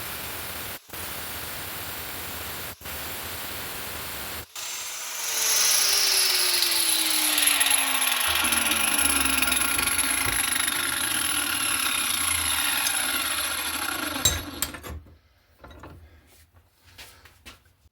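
A steady hiss with brief dropouts, then about four and a half seconds in a power tool starts cutting. Its pitch falls steadily until it stops abruptly about fourteen seconds in.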